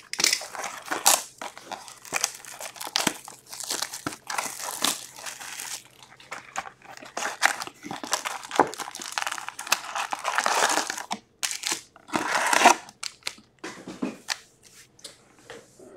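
Crinkling and tearing as an Upper Deck hockey card retail box is unwrapped and its cardboard lid opened, then foil card packs rustling as they are pulled out and stacked. The crackling comes in irregular bursts, loudest in two spells past the middle, and dies down near the end.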